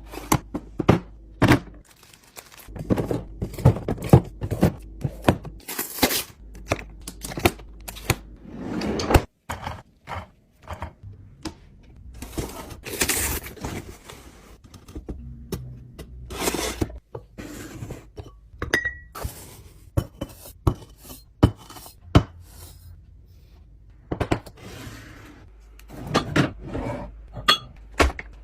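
Kitchen containers, jars and dishes being handled and set down while a refrigerator is arranged: irregular knocks, thunks and light clinks, with a few longer rustling swishes.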